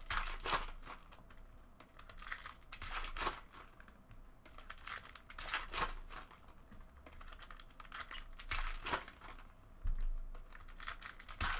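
Trading-card packs and cards being handled at a table: wrappers crinkling and cards rustling and snapping in short, irregular bursts.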